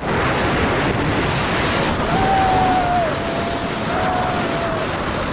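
Wind rushing over the microphone of a moving motorcycle, a loud steady roar, with a faint wavering tone, likely the engine, from about two seconds in.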